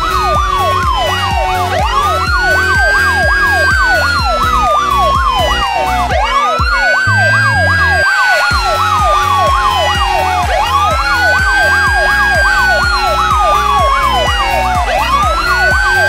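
Electronic siren sounding a slow wail that rises and falls about every four seconds, with a rapid yelp sweeping up and down at the same time, over music with a steady beat.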